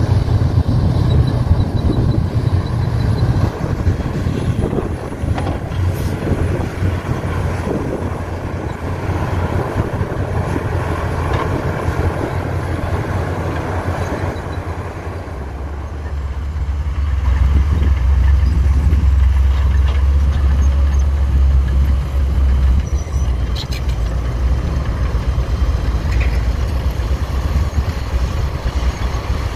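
Heavy diesel engine of earthmoving equipment running steadily. About halfway through, its low drone grows louder and heavier for several seconds, as if under load, then eases back a little.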